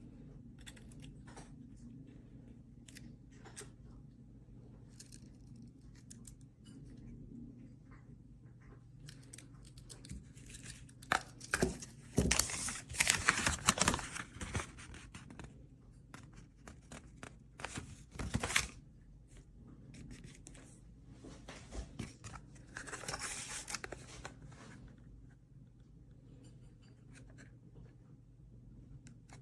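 Handling noises: scattered small clicks, with louder rustling, tearing bursts in the middle, about a third of the way in, again briefly, and a softer stretch later.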